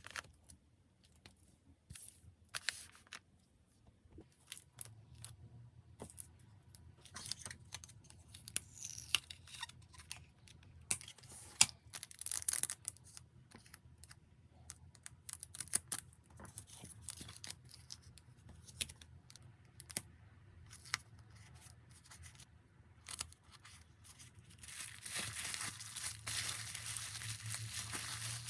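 Packing materials being handled: plastic crinkling, tearing and many small clicks. A denser, louder stretch of rustling comes near the end.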